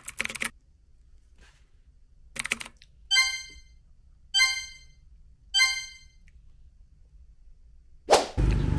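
Editing sound effects: a few short clicks, then three short chime-like tones about a second apart. Near the end a loud whoosh cuts to a steady low engine rumble.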